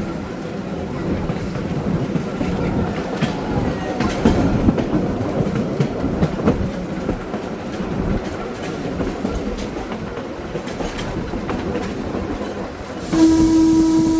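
1926 Wason-built electric trolley car rolling along the track, its wheels clicking over rail joints under a steady rumble. About a second before the end, the car's whistle gives one loud blast of about a second.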